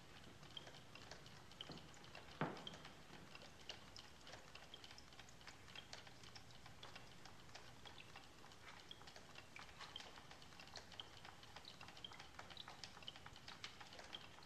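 Near silence with faint, irregular clicking and ticking, a few clicks a second, and one louder knock about two and a half seconds in.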